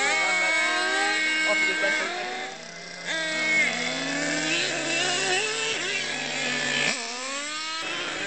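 Several RC model cars' motors whining together, the pitches holding steady, then rising and falling as the cars speed up and slow down, with one sharp drop and climb about seven seconds in.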